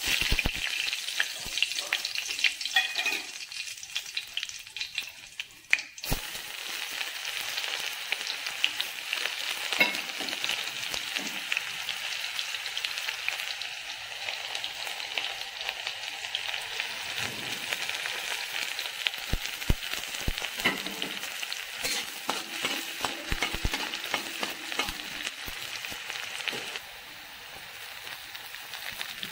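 Hot oil sizzling in a metal wok as dried red chillies fry, then chopped ginger and green chillies are added, with scattered sharp clicks over the hiss. The sizzle drops a little near the end as a heap of chopped greens goes in.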